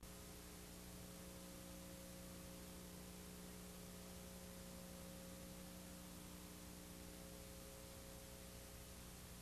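Near silence: a faint steady electrical hum with hiss, and no other sound.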